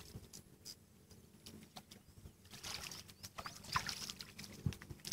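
Faint, irregular ticking and scratching from a spinning reel being wound in with a small fish on the line.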